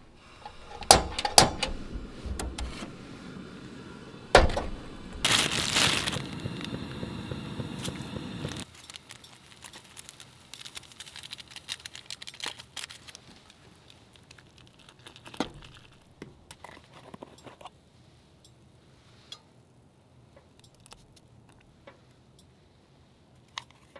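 Clicks and knocks at a camp stove, then a few seconds of loud hiss that stops suddenly about nine seconds in. After that, quieter crinkling of a seasoning packet being torn open, and small clicks of a fork and a sauce jar.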